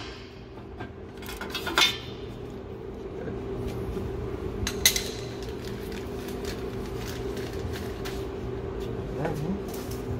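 Hand tools clinking against metal car parts: a few sharp metallic clicks, the loudest about two seconds in and about five seconds in, over a steady low hum.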